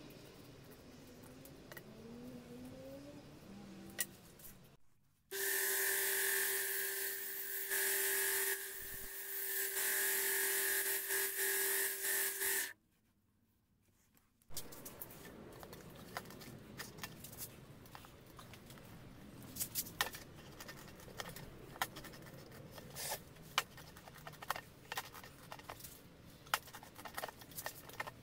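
A felt marker squeaks on tyre rubber. Then a small electric belt sander runs steadily for about seven seconds, with a held hum and a higher whine, and cuts off abruptly; it is the loudest sound. Afterwards a knife cuts through the tyre's rubber with many small clicks and creaks.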